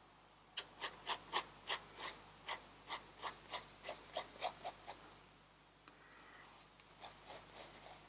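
Pencil sketching on sketchbook paper: a run of short quick strokes, about three a second, for some four seconds, then a pause and a few fainter strokes near the end.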